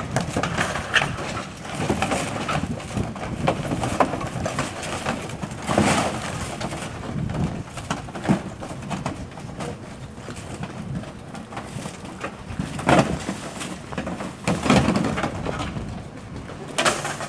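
Bent sheet-metal panels being hauled and dropped on a pile of loose bricks: scraping, rattling metal and knocking brick, with several louder clanks spread through it.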